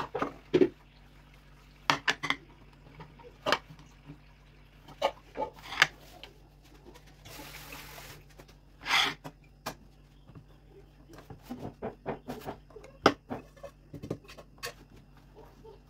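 Kitchen handling sounds: plates and a pan knocked and clinking as they are moved about, with a brief hiss a little past halfway. Near the end, dry semolina is tipped from an aluminium couscous steamer basket into a wooden bowl.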